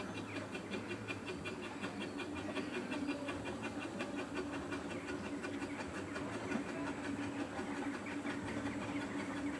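Small narrow-gauge steam locomotive pulling away with its train, its exhaust chuffing in a quick, even beat and steam hissing from the open cylinder drain cocks.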